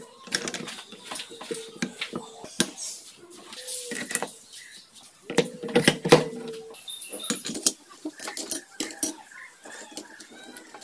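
Motorcycle clutch parts clinking and knocking against metal as they are fitted by hand into an open aluminium crankcase. The loudest clatter, with a short metallic ring, comes about six seconds in as the clutch outer basket goes onto its shaft and its gear meshes; lighter clicks follow as the clutch plates are laid in.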